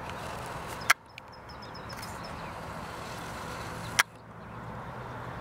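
Steady outdoor background noise, broken twice by a sharp click, about a second in and about four seconds in. Each click is followed by a brief dip in the noise level.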